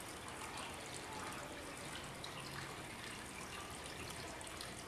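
Steady faint room tone: a low even hiss from the room and the recording.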